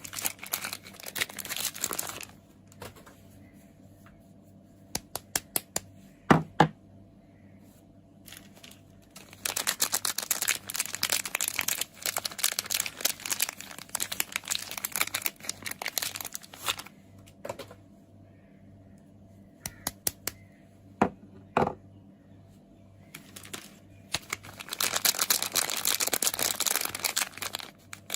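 Soap packaging being unwrapped: the wrapper crinkles and tears in dense bursts of several seconds at the start, through the middle and near the end. Between the bursts come quieter stretches of scattered sharp clicks and taps.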